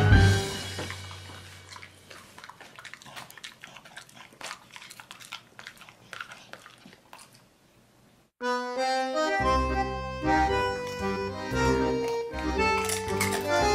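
Background music: a held chord fades out over the first few seconds, leaving faint clicking and smacking from a beagle chewing and licking its lips. About eight seconds in, a new instrumental tune starts suddenly.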